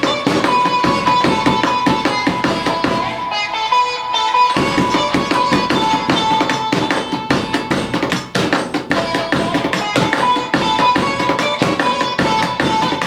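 Hand drumming on a washing machine, fast slaps and taps played along to a Tamil film song whose melody carries over the beat. The drumming drops out for a moment about three seconds in, then comes back.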